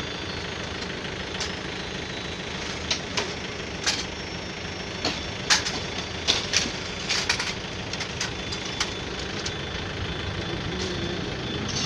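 An engine runs steadily, with a scatter of sharp clicks and knocks through the middle.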